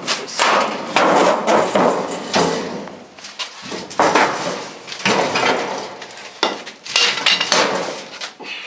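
Repeated metal banging and clanking as parts of an old furnace are torn apart and knocked loose, the impacts coming in irregular clusters.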